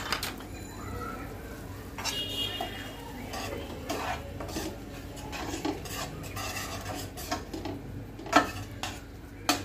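A metal spatula stirring ground spices through oil and water in a stainless steel pot, with irregular scrapes and clinks against the pot and a faint sizzle underneath.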